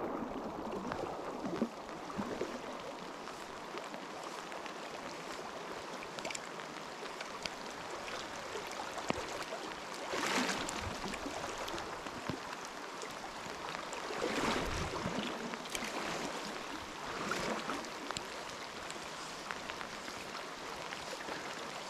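Steady rushing water noise of a flowing trout stream, with rain falling on its surface, swelling briefly a few times.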